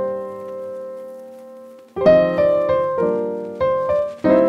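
Background music on keyboard or electric piano: a held chord fades away for about two seconds, then new chords are struck in quick succession.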